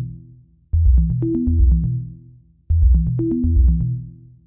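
Electronic music with a drum-machine beat, bass and a synth tone: one short phrase repeating about every two seconds, each time fading out into a brief gap before it starts again.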